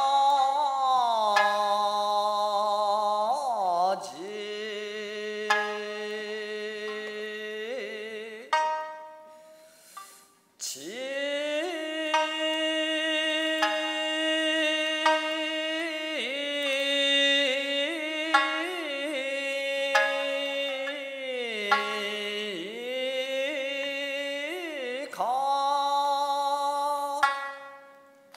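Live Okinawan classical stage music from the jikata ensemble: long held notes that bend slowly in pitch, with a short break about ten seconds in and another near the end.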